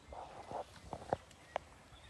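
Elephants moving about through grass and brush: a brief rustle, then three short, sharp snaps in the second half.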